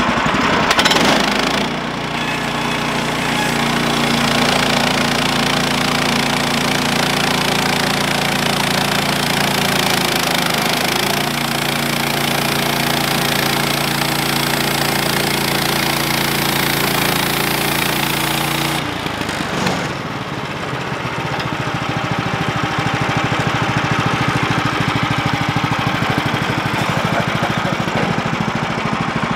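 Woodland Mills HM130 portable bandsaw mill, its gas engine running and the blade sawing through a punky oak log. About 19 seconds in the cutting hiss drops away and the engine runs on at a steadier note.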